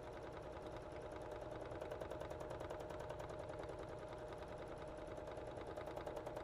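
Elna domestic sewing machine running steadily at speed, free-motion quilting: a rapid, even chatter of needle strokes with a faint steady hum.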